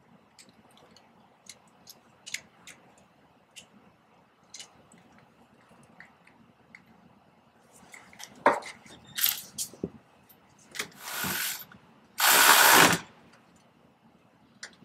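Hand and power tools fastening a cable nut onto a truck battery terminal. Faint clicks and handling of the hardware come first, then a sharp click about eight and a half seconds in. After that come short noisy bursts of a tool running; the last, about a second long, is the loudest.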